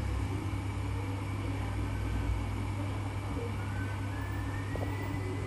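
Steady low hum with a faint hiss: background equipment running in the room. The nipper work on the skin makes no distinct sound.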